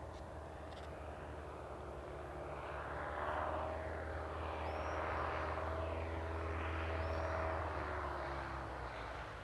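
Saab T17 Safari propeller trainers flying past, a steady piston-engine and propeller drone. The sound swells about two and a half seconds in and stays loud until near the end, with a whooshing rise and fall as the planes pass.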